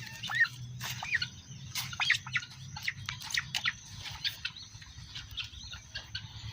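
Birds chirping in short calls, with many scattered sharp clicks over a low steady hum.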